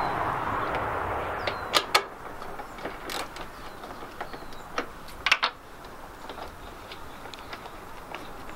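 Hand tool and metal fastenings clicking and knocking as the headlight bolts of a MINI R53 are undone. Two sharp clicks come about two seconds in, another a second later and a quick cluster about five seconds in, over a steady hiss that fades after the first two seconds.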